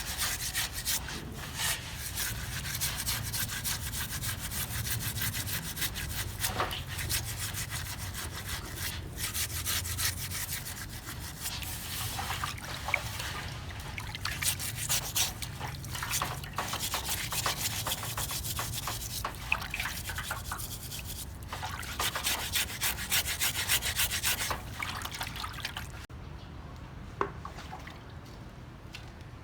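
A shark's skin being scraped in runs of quick, rapid strokes, a rasping rub, which stop near the end.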